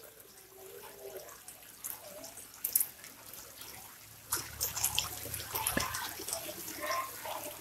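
A crowd of red common carp splashing and slurping at the water's surface as they scramble for food. The splashing is scattered at first, then turns busier and louder about four seconds in.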